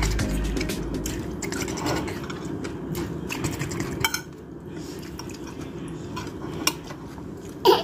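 Spoons and forks clinking and scraping against a shared dinner plate while people eat, with scattered light clicks.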